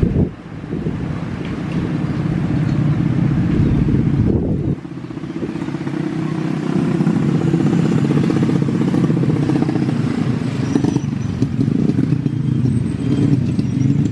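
An engine running steadily with a low, evenly pulsing hum.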